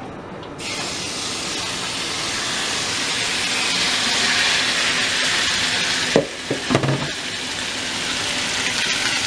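Raw seasoned chicken thigh pieces poured into a hot nonstick frying pan, a steady sizzle that starts suddenly about half a second in as they hit the pan. A few knocks sound a little past the middle.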